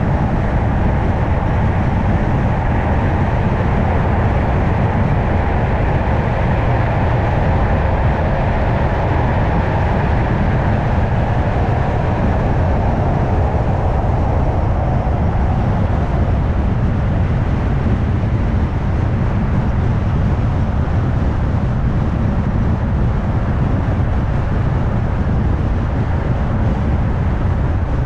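Steady road noise of a car being driven: a low rumble of tyres on the road with wind. A higher hiss in the mix eases off about halfway through.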